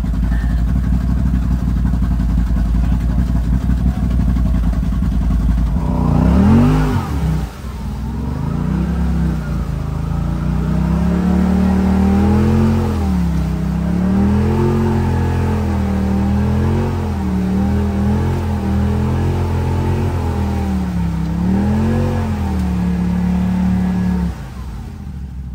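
Off-road side-by-side's engine running steadily at low revs, then revving up sharply about six seconds in and rising and falling repeatedly with the throttle, before easing back to a quieter steady run near the end.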